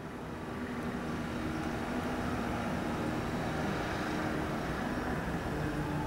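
Steady outdoor background noise with a low rumble and a faint hum, fading up over about the first second.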